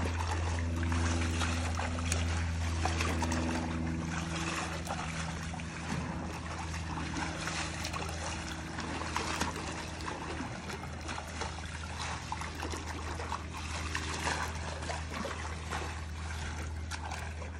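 Swimming-pool water splashing and sloshing as a man wades through it and sweeps his hand across the surface, in many small irregular splashes, with a steady low hum underneath.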